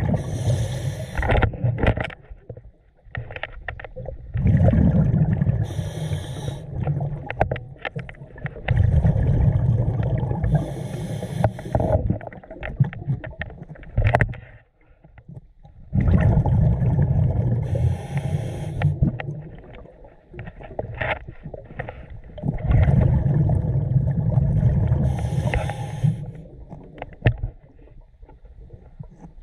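Scuba diver breathing through a regulator underwater: about five breaths, each a short hiss and a low rumble of exhaled bubbles, several seconds apart.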